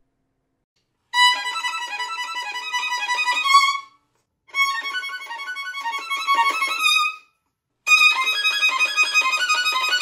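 Solo violin playing a fast passage in the high register, three times with short pauses between, each run ending on a held note. The takes are recorded alternately on an iPhone 12 Pro's built-in stereo microphone and on a Rode NT4 stereo condenser microphone.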